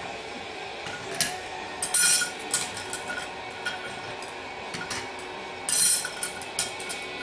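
Steel clutch plates and friction discs of a Powerglide clutch pack clinking as they are stacked by hand into the clutch drum. Irregular metal-on-metal clinks with a short ring, loudest about two seconds in and again about six seconds in.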